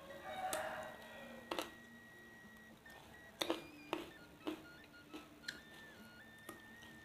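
Faint close-up chewing and crunching of raw vegetables, with a few sharp crisp clicks spread through. Underneath, a faint thin tone steps up and down in pitch.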